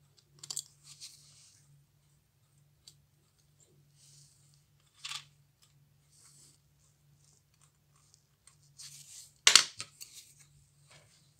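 Small scattered clicks and taps of steel tweezers on a watch movement and its parts being handled and set down, with brief rustles of gloved fingers. A sharper, louder click comes near the end.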